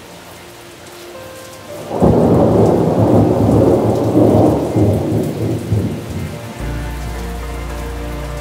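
A thunderclap about two seconds in, rolling into a loud rumble that fades after about four seconds, over steady rain. Soft music with a held low note comes in near the end.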